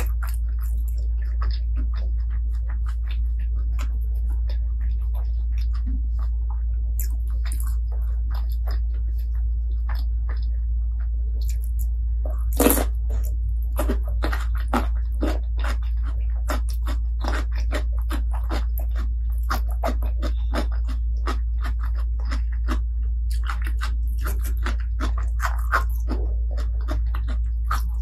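Close-miked eating: chewing with many short crunches and bites throughout, and one louder crunch a little before halfway, over a steady low hum.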